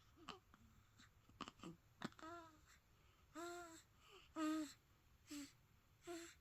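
Soft, wheezy snoring: short breaths with a whistling squeak, coming about once a second, the one near the middle the loudest.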